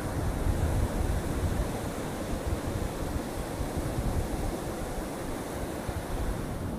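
Ocean surf breaking and washing up a sandy beach in a steady roar, with a gusty low rumble of wind on the microphone.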